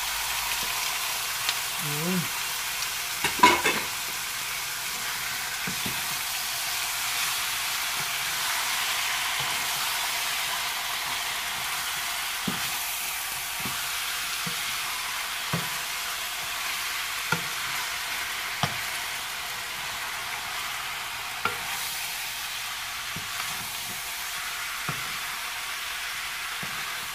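Sliced pork and chicken frying in a hot pan with a steady sizzle, stirred with a wooden spatula that knocks against the pan every second or two. A louder clatter comes about three and a half seconds in.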